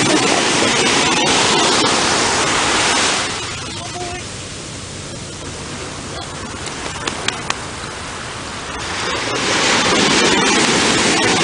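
Rushing noise of beach wind and surf, loud at first, falling away about three seconds in and swelling back up about nine seconds in. A few faint clicks near the middle.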